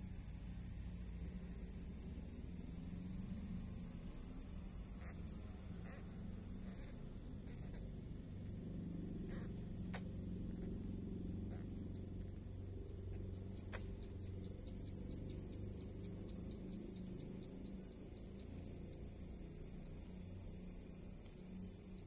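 Crickets chirring in a continuous, even, high-pitched night chorus, with a couple of faint clicks about halfway through.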